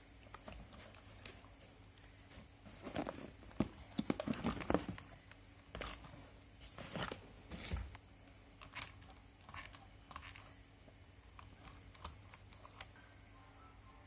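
Packaging being handled close up: crinkling and rustling with scattered light clicks and knocks. It comes in two busy spells in the first half, then thins out to occasional clicks.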